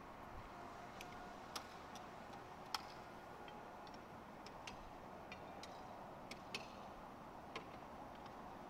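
Faint, irregular clicks and ticks, about a dozen, over a steady low hiss. The sharpest click comes a little under three seconds in.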